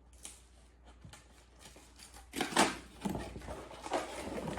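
Cardboard box and packaging being opened and handled: a few light clicks and scrapes, then a loud rustle about two and a half seconds in, with more rustling and knocks after it.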